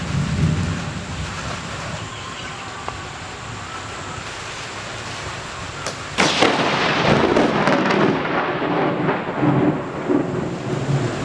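Steady rain during a thunderstorm, then about six seconds in a sudden crack of thunder that breaks in loudly and keeps rumbling.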